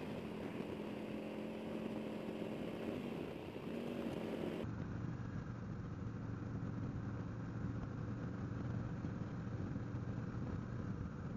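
Harley-Davidson Road King Special's Milwaukee-Eight 114 V-twin, fitted with Vance & Hines slip-on mufflers, running steadily. About five seconds in the sound switches abruptly to a lower, steady hum.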